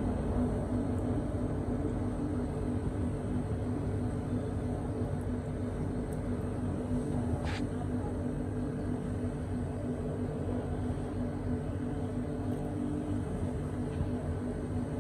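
Steady low mechanical hum with a few held low tones, and one brief hiss about seven and a half seconds in.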